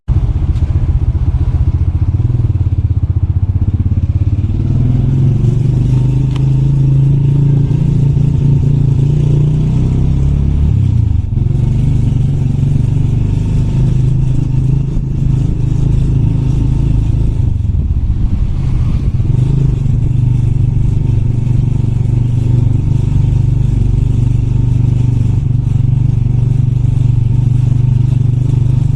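Motorbike engine running steadily under way, with a short drop and shift in its pitch about eleven seconds in before it settles again.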